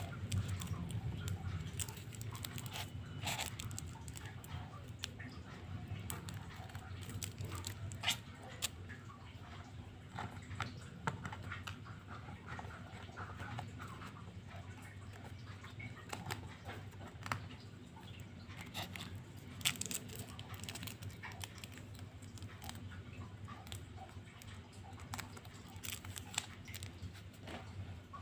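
Fingers handling a sand-art picture card: backing paper picked at and peeled off and the surface rubbed, giving scattered light ticks and scratches over a low steady hum.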